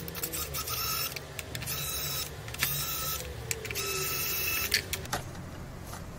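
A screwdriver undoing the mounting screws of a CPU cooler block, in four short whirring bursts with a steady whine, over a low steady hum.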